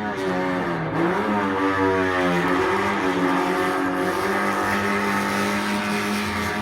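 Sports racing car engine running hard. Its pitch dips, climbs over about a second and a half, then holds steady at high revs.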